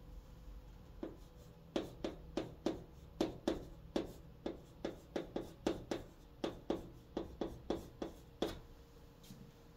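Chalk writing Korean characters on a green chalkboard: a quick run of short taps and scratches as each stroke is put down. It starts about a second in and thins out near the end.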